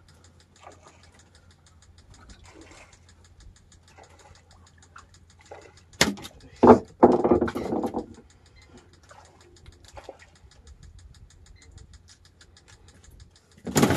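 Faint small clicks and rustles of a fishing handline and hook being handled, over a low steady hum. About six seconds in comes a sharp click, then a loud burst lasting about a second.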